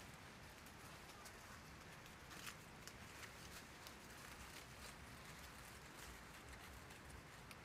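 Near silence: faint outdoor background hiss with a few soft, scattered clicks or rustles.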